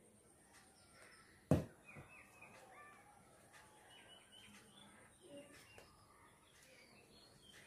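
Faint birds chirping in the background of a quiet room, with one sharp tap about one and a half seconds in.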